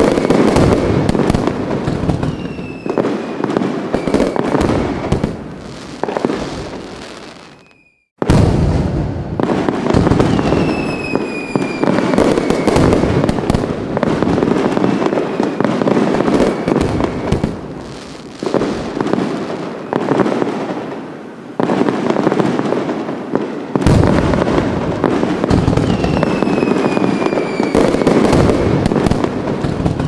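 Fireworks going off in a dense barrage of bangs and crackling, with several falling whistles. About eight seconds in the sound fades out almost to nothing and then starts again abruptly.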